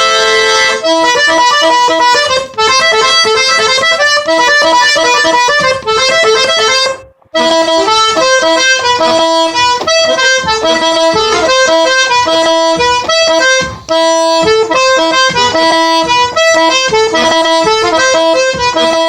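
Accordion tuned in G–C playing an instrumental merengue passage: a running melody of quick notes over a steady rhythm, with a short break about seven seconds in.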